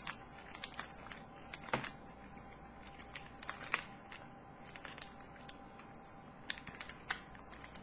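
Faint, irregular small clicks and crackles as a sticky candy strip is handled and eaten.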